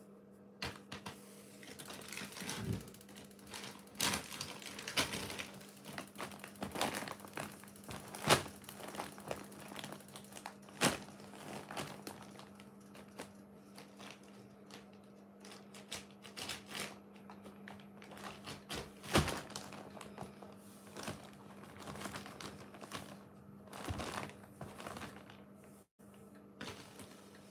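Thin clear plastic bag crinkling and rustling in irregular bursts as a cat paws and pushes into it, with a few sharper crackles about eight and nineteen seconds in.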